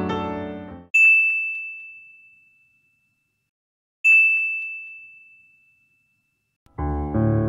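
Piano music cuts off, then a high bell-like ding sound effect rings twice, about three seconds apart, each note fading out over about two seconds. The piano music comes back near the end.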